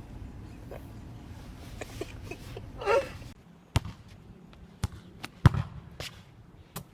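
A brief pitched cry, then a handful of sharp knocks at uneven intervals, the loudest a little past the middle.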